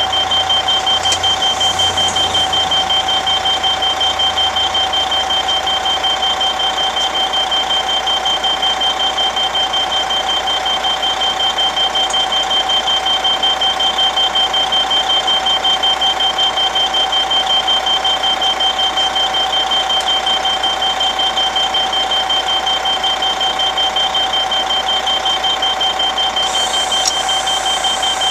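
Motorcoach wheelchair lift's warning beeper sounding continuously while the lift is operated: a steady, fast-pulsing electronic beep.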